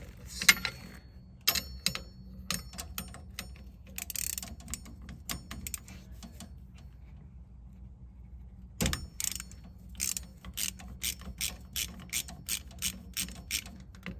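Ratchet wrench clicking as it is swung back and forth to loosen a fastener, with irregular clicks at first and then a steady run of about three clicks a second in the last few seconds.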